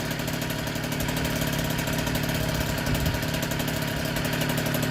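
1964 NSU Quickly S23's 49 cc single-cylinder two-stroke engine idling steadily with an even beat, running on its first start after an engine rebuild.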